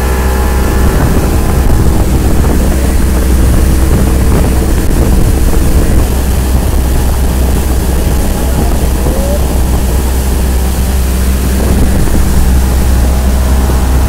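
Yamaha outboard motor on a speedboat running steadily at speed, a constant low drone with rushing noise from wind on the microphone.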